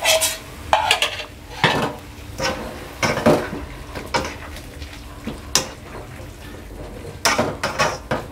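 A spatula stirring and tossing vegetables in a wok, scraping and knocking against the pan at irregular moments about once a second, over a low sizzle. Cornstarch slurry is going in to thicken the sauce.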